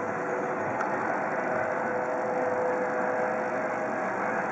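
Steady engine drone with a few faint held tones running through it.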